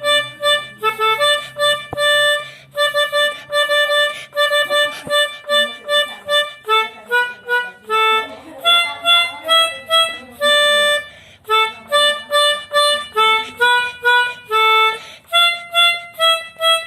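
Melodica (pianika) playing a telolet bus-horn tune as a quick run of short, separated notes, with a few longer held notes along the way.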